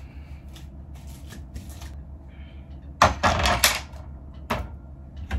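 Tableware being gathered up off a glass coffee table onto a wooden tray: a few light clicks, then a burst of clattering about three seconds in and a single knock a little later.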